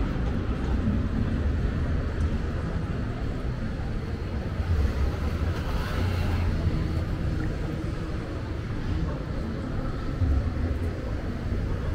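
Busy city-street ambience: a steady low rumble of road traffic, with a vehicle passing close at the start.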